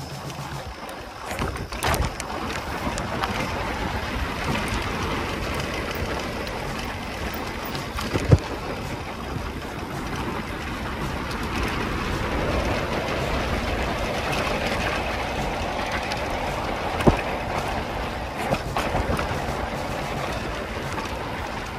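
Mountain bike riding on a rough trail: a steady rush of wind on the microphone and tyres rolling, with a few sharp knocks, the loudest about eight and seventeen seconds in.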